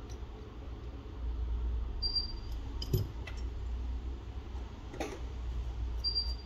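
Light clicks and taps of small tools and parts on a phone being repaired, a few at a time, over a low steady hum. A faint short high tone comes twice, about four seconds apart.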